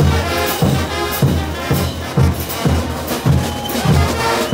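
Marching brass band playing: trumpets, trombones, baritones and sousaphones over bass drums, snare drums and clashed hand cymbals, the bass drum beating about twice a second.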